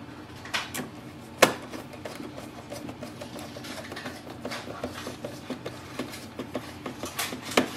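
Small plastic clicks and knocks as the printer's ink tank parts are handled and fitted by hand. There is a sharp click about a second and a half in and a quick run of clicks near the end, over a faint steady hum.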